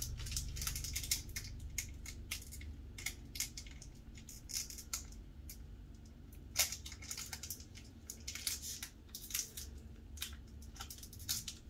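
Foil wrapper of a Pokémon trading-card booster pack crinkling in irregular sharp crackles as fingers pick and pull at it. The pack is pretty tough and does not tear open.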